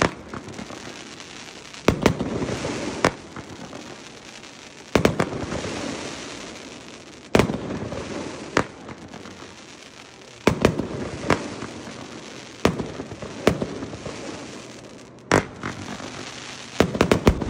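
World Class 'Passenger Princess' 16-shot, 200-gram consumer firework cake firing: sharp shots come every one to two seconds, each followed by a fading hiss and crackle.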